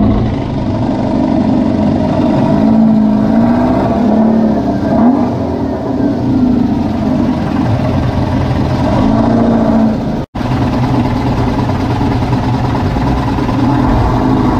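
Beach buggy's engine running with short bursts of revs as the car moves off on wet concrete, its rear wheels spinning for grip.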